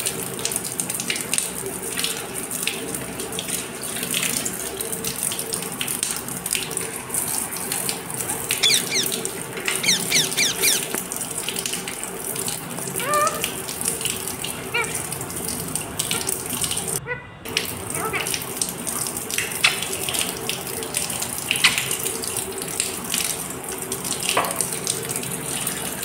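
Water running and splashing steadily onto a rose-ringed parakeet and its wire cage during a bath, with a few short squeaks a third of the way through and about halfway.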